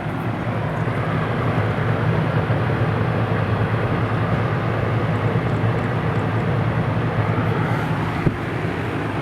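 Early-1970s Whirlpool central air-conditioner condenser running: a steady low compressor hum under the rush of its fan, with a single faint click near the end.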